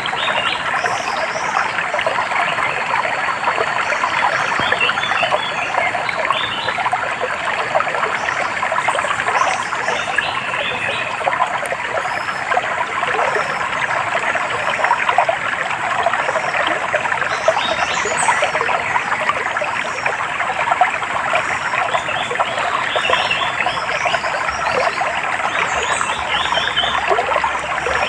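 Stream water trickling and babbling steadily, with small birds giving short runs of high chirps every few seconds.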